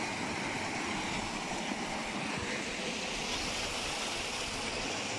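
Small rocky stream running over stones, a steady rush of water.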